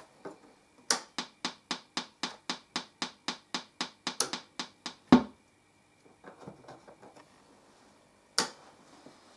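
Speaker driven by a TPA3122D2 class D amplifier board clicking rapidly and evenly, about four to five sharp clicks a second for several seconds: a fault on the newly connected channel. The clicking ends in a louder, deeper thump as the board is switched off, and a single pop comes a few seconds later as it is switched back on.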